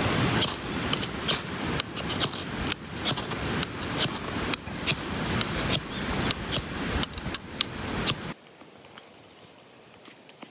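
Wood fire crackling, with irregular sharp pops over a steady rushing hiss; it cuts off suddenly about eight seconds in, leaving only a few faint crackles.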